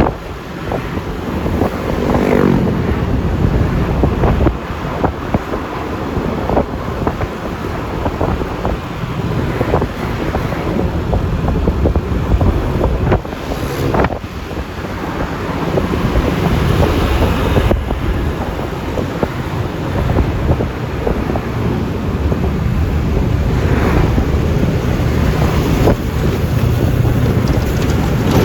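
Riding noise from a Yamaha Lexi LX 155 scooter under way: wind rushing over the phone microphone over the hum of the scooter's engine and tyres on the road, with a few short knocks and a brief rising engine note about two seconds in.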